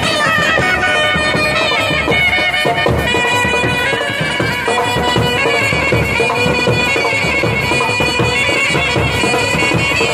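Indian street brass band playing a loud, steady melody on wind instruments over a beat of bass drums.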